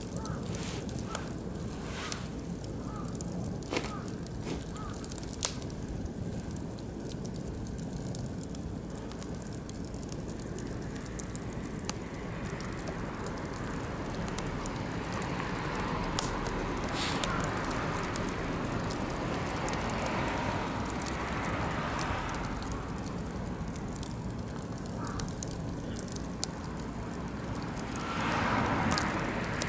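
Oak and beech firewood burning, crackling steadily with frequent sharp pops.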